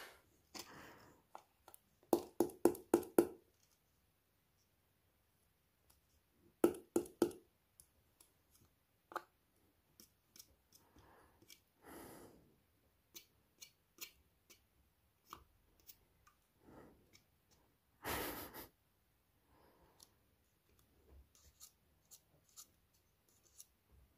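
Hands handling and tapping a small plastic container over a plastic box to work the ants out: a quick run of about five knocks a couple of seconds in, another short cluster of knocks around seven seconds, scattered light plastic clicks, and a brief rustle about eighteen seconds in.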